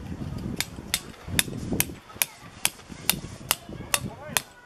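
A copper-headed camping hammer driving a tent peg for a guy line into hard ground: about ten even strikes, a little over two a second.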